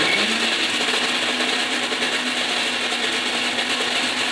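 Electric mixer grinder grinding chopped fresh coconut with a little water in its steel jar, running steadily at full speed. Its motor, just switched on, rises to its running pitch in the first moment and then holds steady.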